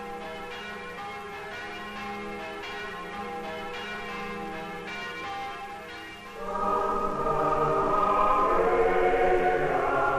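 Church bells ringing, with sustained overlapping tones and repeated strokes. About six seconds in, a choir enters, singing louder over them.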